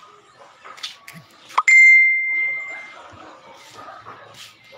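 A single high, clear ding that rings out and fades over about a second, just after a brief rising squeak.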